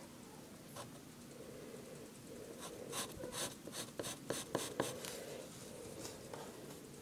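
Pencil scratching on paper in faint strokes, with a quick run of short strokes in the middle.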